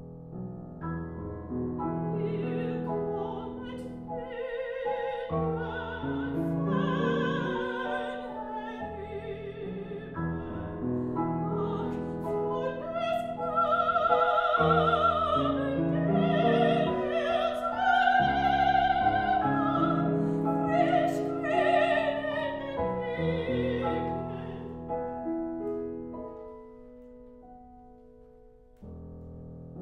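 A classical soprano singing a German art song over grand piano accompaniment, her voice carrying a wide vibrato and loudest around the middle. The voice stops near the end, the piano carries on alone, dips very quiet briefly, then plays on.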